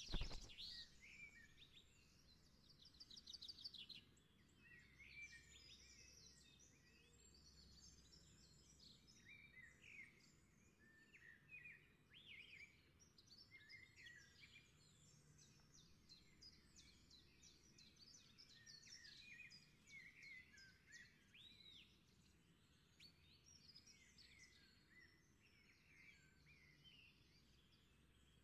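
Faint chirping and trilling of several small birds, short calls overlapping throughout over a low steady background hum. A single sharp click right at the start.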